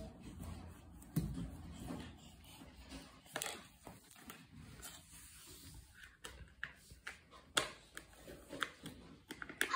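Scattered soft taps, rustles and scrapes from a baby moving about on a wooden parquet floor and handling small plastic cups.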